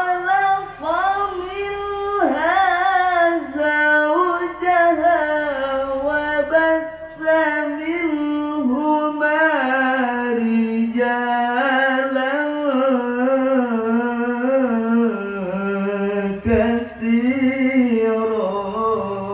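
A man's solo melodic Quran recitation (qiroah/tilawah) into a microphone: long, drawn-out phrases with the voice wavering and turning through ornamented melodic runs, broken by short breaths about two seconds in and again near the end.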